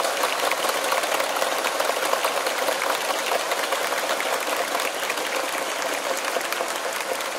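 A large crowd applauding: a dense, steady clatter of many hands clapping at once.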